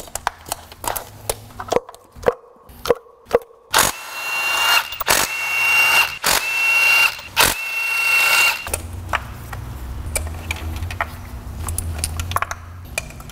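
A 20-volt cordless 3/8-inch impact wrench with an extension spins spark plugs out of the engine. It runs in several short bursts with a steady high whine. Before that there are plastic clicks and knocks as the ignition coils are pulled off.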